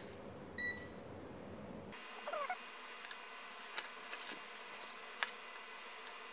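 Mestek DM91A digital multimeter giving a short beep as it switches on, about half a second in. It is followed by scattered light clicks and taps of the test probes against a circuit board, with a faint brief squeak near the middle.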